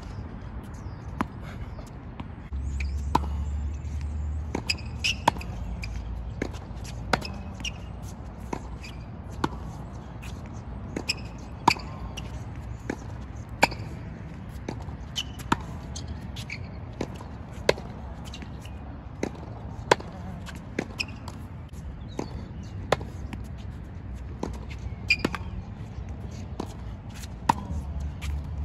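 Tennis rally on a hard court: a tennis ball struck by racket strings and bouncing on the court, sharp pops about every one to two seconds.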